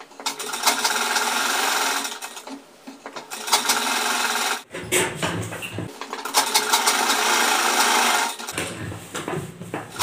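Sewing machine stitching the side seam of a cotton pajama. It runs in three spells of one to two and a half seconds, with short stops between them.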